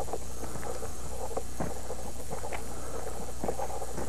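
Steady low hum and hiss, with a few faint scattered ticks and clicks.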